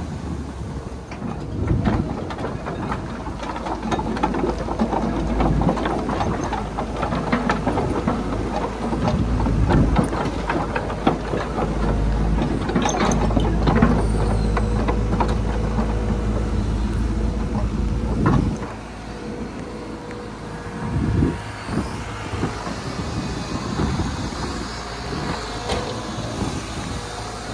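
Hitachi Zaxis 130 excavator's diesel engine running under load while the machine travels and works its boom, with frequent clanks and knocks from the steel tracks and the arm. The engine note drops noticeably about two-thirds of the way through.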